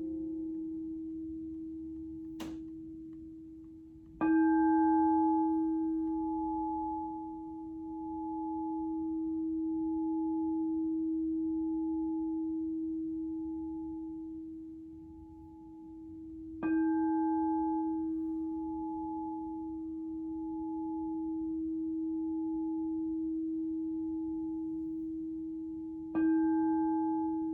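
Alchemical crystal singing bowl struck three times, about four, seventeen and twenty-six seconds in. Each strike rings on as one long steady tone with a wavering upper overtone, and a light tap comes about two seconds in. A shruti box drone fades out at the very start.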